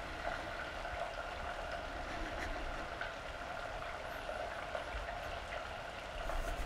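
Water running steadily, with a faint steady hum beneath it and a few light clicks.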